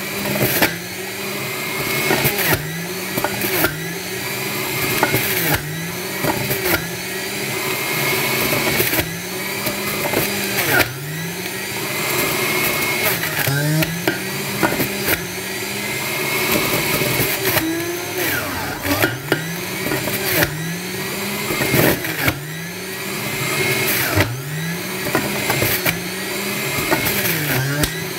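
Electric centrifugal juicer grinding beetroot. The motor's pitch sags and climbs back up again and again as chunks are pressed onto the spinning cutting disc, with scattered knocks and rattles from the pieces.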